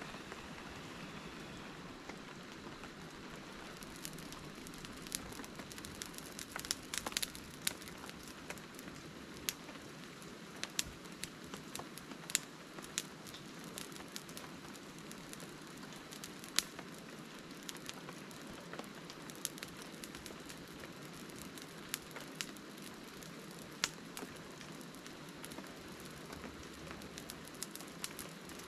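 Steady rain falling on a camping tarp: an even hiss with scattered sharp ticks, thickest in the middle of the stretch.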